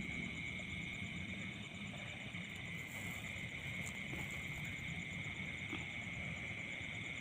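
Night chorus of crickets and other insects: a steady high trill, with a fainter, rapidly pulsing trill higher above it.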